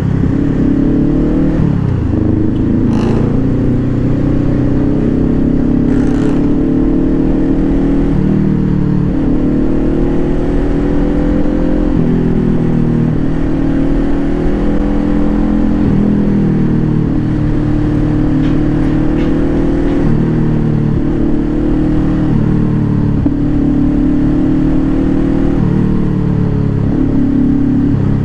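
Honda CBR500R's parallel-twin engine running on the move, its pitch climbing and dropping several times as the bike accelerates and shifts gears in traffic.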